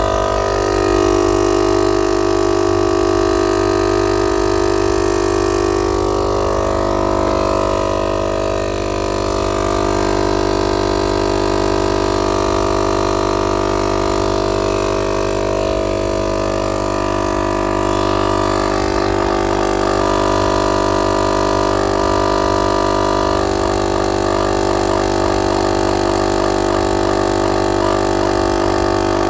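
Motomaster 12 V direct-drive air compressor running under load while inflating a car tire, a loud, steady drone.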